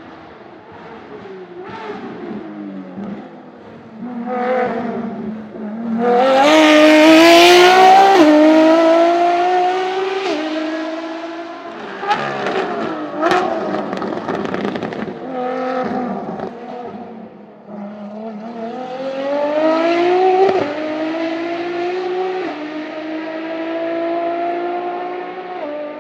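Ferrari LaFerrari's V12 engine at full throttle on track, the note climbing through the gears with a sudden drop in pitch at each upshift, loudest about six to nine seconds in as the car passes close. Around the middle the pitch falls as the car slows, with a sharp crack, then it pulls hard through the gears again.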